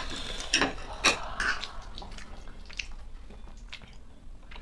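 Wet slurping and chewing of noodles close to the microphone, with a few sharp clicks of a fork against a plate, most of them in the first two seconds.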